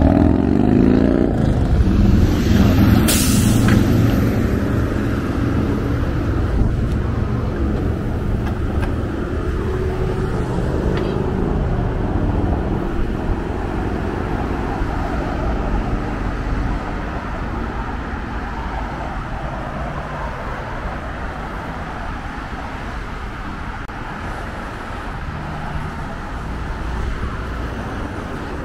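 Street traffic going by, loudest at the start and slowly fading away, with a short sharp hiss about three seconds in.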